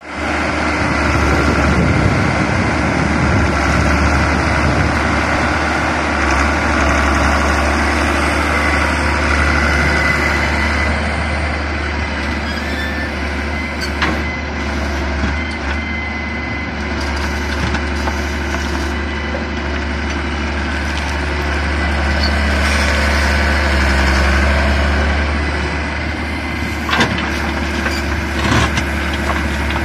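Hitachi EX100 wheeled excavator's diesel engine running steadily while the machine works, with a few sharp knocks halfway through and near the end.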